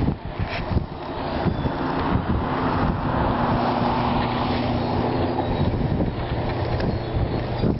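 A motor vehicle's engine running with a steady low hum, under heavy wind and snow noise on the microphone. The noise swells toward the middle.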